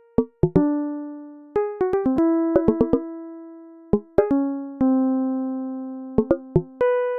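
Slow instrumental background music: single struck notes that ring and fade one after another, with short light taps between them.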